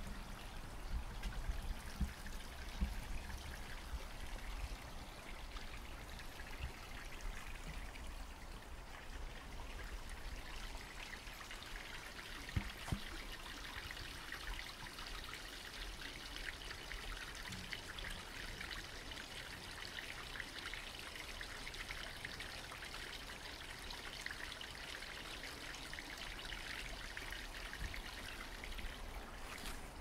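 Small stream trickling and babbling over stones: a continuous fine splashing hiss that grows louder in the second half.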